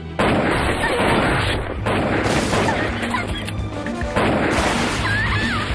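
Animated action-film soundtrack: dense, rapid gunfire and explosive booms over action music. A louder barrage starts suddenly just after the start and again about four seconds in.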